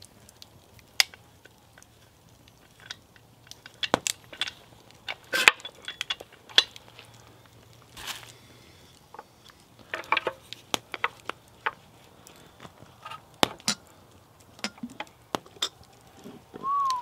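Scattered sharp metal clicks and clanks from a Kazan Afghan pressure cooker as its valves are pulled off and its lid is unlocked and lifted, once the steam has stopped and the pot has lost its pressure.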